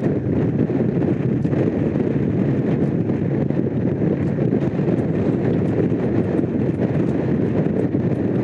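Honda CX500's liquid-cooled V-twin engine running steadily while the motorcycle is ridden at speed, mixed with wind rushing over the microphone.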